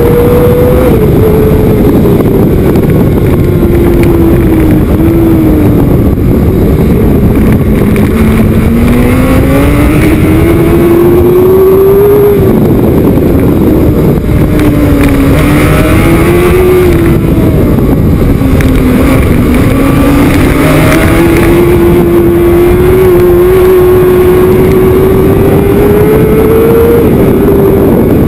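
Racing motorcycle engine heard close up from an onboard camera at race speed. Its pitch climbs with the throttle and drops off sharply several times as the rider shifts and rolls off for corners.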